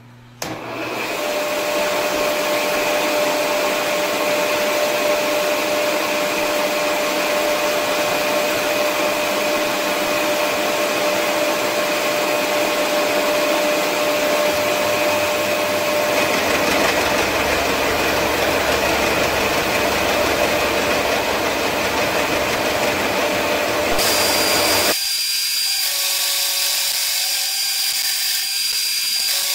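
Vertical milling machine with an end mill side-milling the edge of a metal bar: a loud, steady cutting noise with a whine that starts suddenly just after the opening. Near the end the cutting noise drops away, leaving the machine's whine.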